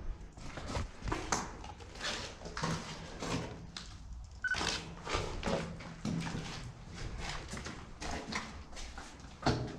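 Footsteps and scuffing, irregular knocks over a low rumble, with a short high beep about four and a half seconds in.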